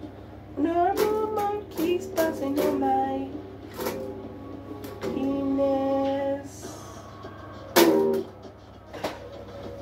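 Small acoustic guitar strummed in single, spaced-out chords, with a man's voice singing drawn-out notes between and over them. The loudest strum comes near the end, after which the playing thins out.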